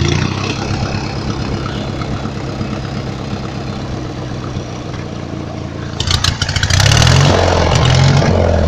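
A 14-horsepower riding lawn mower engine running steadily, then getting louder and rougher about six seconds in.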